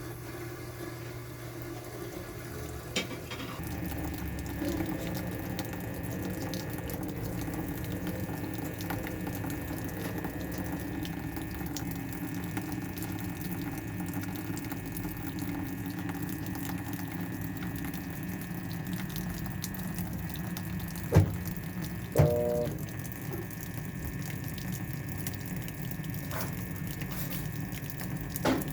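Washing machine filling with water: a click about three seconds in, then water running steadily into the tub. Two short knocks come about three-quarters of the way through, and another near the end.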